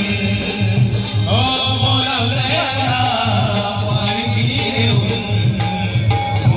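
Live amplified devotional group music: a steady hand-drum beat with keyboard and singing, a voice carrying the melody from about a second in.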